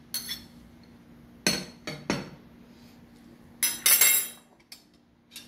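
A metal spoon clinking and scraping against ceramic plates. There are a few separate clinks, then a short run of clatter about two thirds of the way through.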